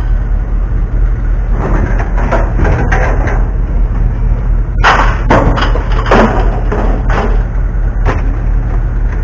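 Scrap being thrown out of a pickup bed onto a scrap pile: several clattering bangs and thumps of metal and plastic pieces landing, the loudest about five seconds in, over a steady low rumble.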